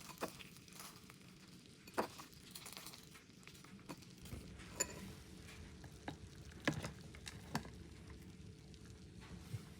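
Light kitchen handling: about six sharp clicks and taps scattered through a faint background, as syrup-coated fruit skewers knock against a bowl and ice in an ice bath.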